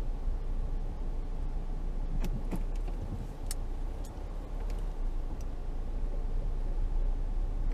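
Vehicle engine and road noise heard from inside the cabin while driving slowly, a steady low rumble. A few light clicks come between about two and four seconds in.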